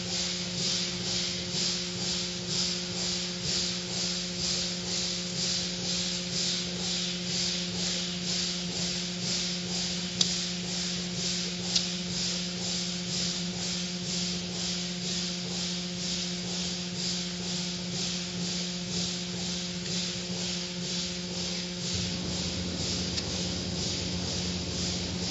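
Automatic car wash running: rotating cloth brushes and water spray swishing over a car in a steady rhythm of about two swishes a second, over a constant motor hum. Two brief knocks sound about halfway through, and a deeper rumble comes in near the end.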